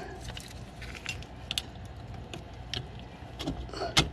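Scattered small metal clicks and scrapes of locking pliers and a pry tool working against the coil spring of a drum brake's parking brake cable, with a sharper click near the end.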